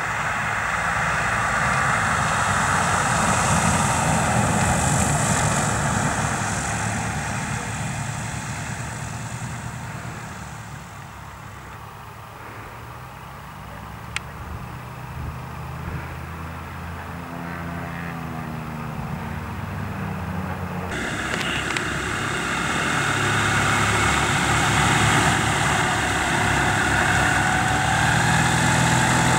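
Twin Rotax 912 piston engines of a Che-29 amphibian running at low taxi power. The sound fades down and comes back up, and the engine pitch wavers briefly before the sound grows louder again in the second half.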